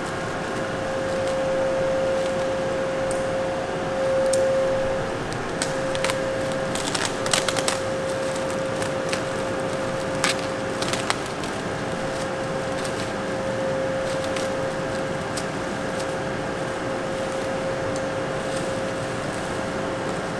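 Steady machine-shop hum with a constant mid-pitched whine, with a scatter of sharp clicks and knocks in the middle.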